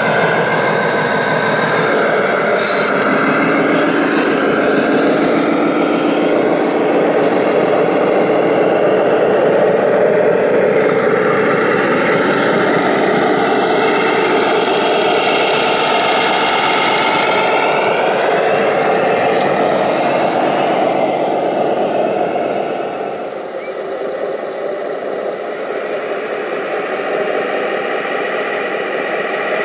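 Radio-controlled construction vehicles running, a steady engine-like drone with motor whines that rise and fall as the machines work. The sound gets quieter about three-quarters of the way through.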